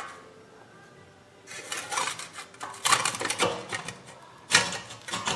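Metal parts clinking and knocking in irregular clusters as a new rear wheel hub bearing and its dust shield are set in place on the axle, starting about a second and a half in.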